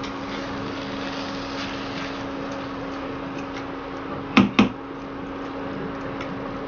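Induction cooktop humming steadily while a spatula stirs prawns and spring onions in a kadhai with soft scraping. About four and a half seconds in come two sharp knocks in quick succession.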